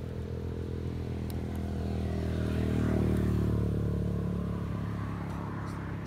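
A passing vehicle's engine: a steady low drone that grows louder to a peak about halfway through and then fades.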